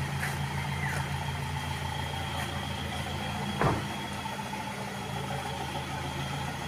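A motor vehicle's engine running steadily, a low even hum, with one short knock a little past halfway.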